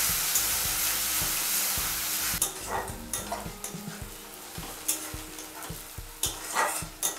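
Sliced onions sizzling as they fry in oil in a metal kadai, loud at first, then quieter about two and a half seconds in. A metal spatula scrapes and knocks against the pan as the onions are stirred.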